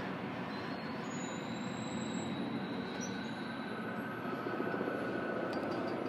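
Steady rumble of a SACRT CAF light rail train moving away over the crossing, with thin high squealing tones from its wheels on the rails coming and going.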